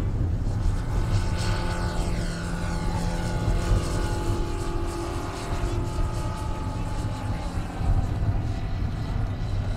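Engine and propeller of a 2.57 m scale model Dewoitine D.26 running steadily as the model takes off and climbs away. A falling pitch sweeps through the upper notes between about one and three seconds in as it passes.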